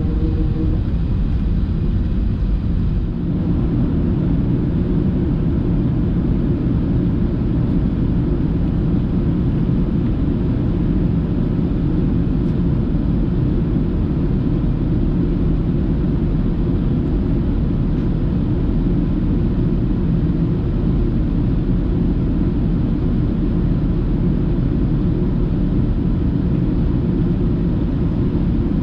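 Steady, loud rumble of an Airbus A380-800 in flight or on its roll, engine and airflow noise heard from inside the cabin, with the weight low in pitch.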